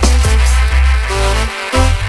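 Dub track with a deep, heavy bass line under drums and percussion. The bass drops out briefly about a second and a half in.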